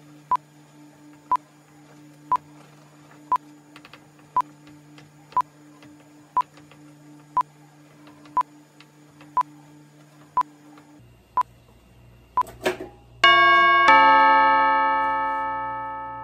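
Short electronic timer-style beeps about once a second over a low steady hum; the hum stops about eleven seconds in. Near the end a brief swish, then a loud, bright bell-like chime chord rings out and fades slowly over several seconds.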